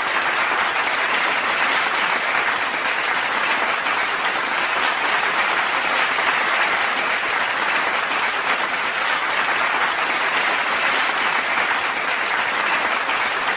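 Steady applause from a crowd, an even dense clapping that neither builds nor fades.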